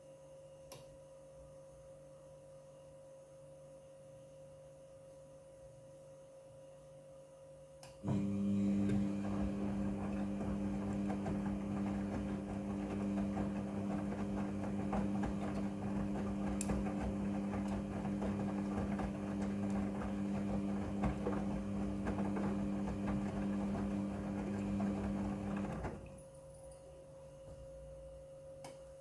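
Midea front-loading washing machine's drum motor starting suddenly about eight seconds in and turning the drum for about eighteen seconds with a steady hum and a rough churning noise from the tumbling load, then stopping. Before and after, only a faint steady electrical hum.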